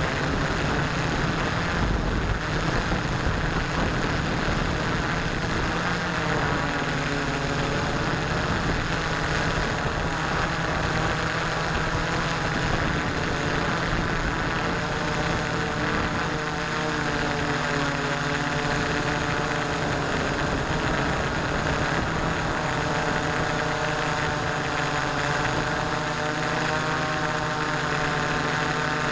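Electric motors and propellers of an S650APM hexacopter running steadily, heard from a camera mounted on the craft itself. Their tones shift in pitch as the throttle changes while it descends to a low hover.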